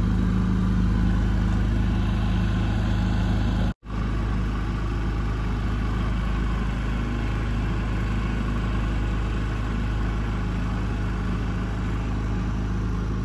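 Boat motor running steadily at a constant speed, a low even engine hum with no change in revs. The sound drops out for a split second about four seconds in.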